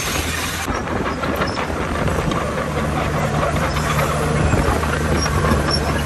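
Komatsu crawler bulldozer working: its diesel engine running steadily under load with the clatter of steel tracks.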